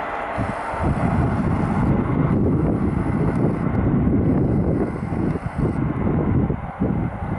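Wind buffeting the microphone: a gusting, uneven rumble that comes and goes in short surges.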